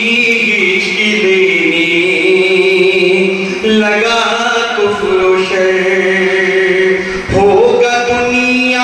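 A man's solo voice chanting a naat unaccompanied, amplified through a microphone, in long held, wavering notes with short breaks between phrases about four and seven seconds in.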